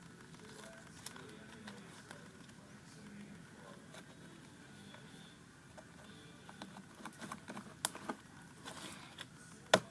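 Quiet handling of slime and a small hair clip: faint rustling, then a run of small clicks and taps in the last few seconds, the sharpest just before the end.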